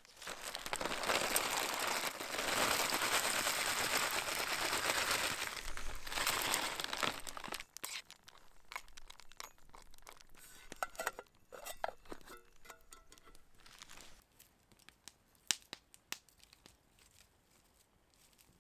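Plastic packaging crinkling and rustling for several seconds, then a spoon stirring and clinking against a metal camp pot.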